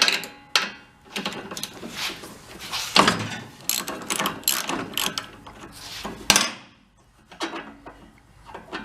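Socket ratchet clicking in irregular runs, with knocks of metal tools, as a spark plug is worked loose from a small four-stroke snowblower engine; the clicking stops near the end.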